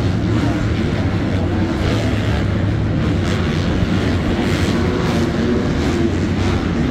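Several 250cc four-stroke supercross dirt bikes running on the track at once, their engines merging into a loud, continuous din that wavers as riders rev on and off.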